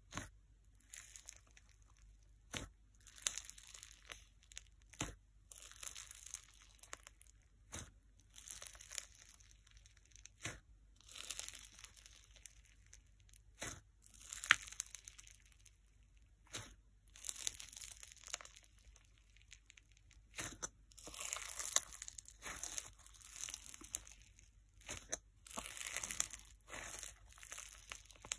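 Fingers poking and pressing into a dense, snow-packed fizz slime in a plastic tub, giving crisp crunching and crackling with a fizzy sizzle. It comes in bursts with each press, with now and then a sharp pop, and runs almost unbroken over the last several seconds.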